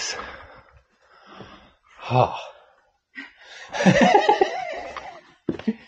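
People laughing in short breathy outbursts, with a gasped "oh" about two seconds in and the longest bout of laughter just past the middle.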